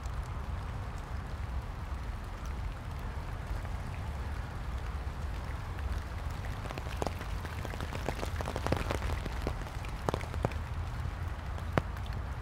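Light rain falling on a wet, leaf-covered path, with a steady low rumble underneath. Scattered sharp ticks come through, more of them in the second half.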